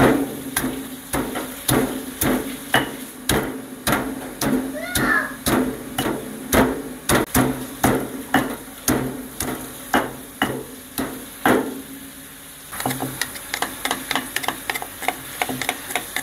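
Heavy stone pestle pounding garlic and shallots in a deep stone mortar, about two dull strikes a second. The strikes pause about twelve seconds in, then come back lighter and quicker.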